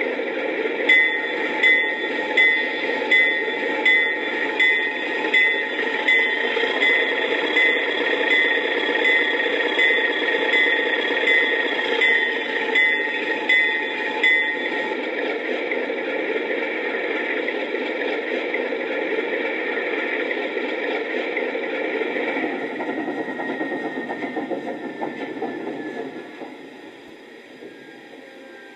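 Alco diesel locomotive sound from a Zimo sound decoder, played through a G-scale model's small onboard speaker. The engine runs steadily while the bell rings about one and a half times a second for roughly the first half. Near the end the engine sound winds down with a falling whine and drops away.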